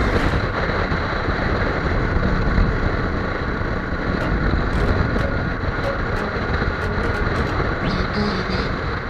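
Benelli TNT300 motorcycle running at a steady speed, its engine under heavy wind rush on the rider's microphone.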